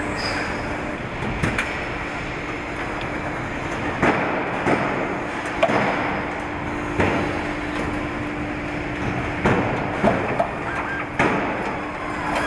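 Car assembly-line factory noise: a steady machine hum under a constant din, with irregular clunks and knocks every second or two.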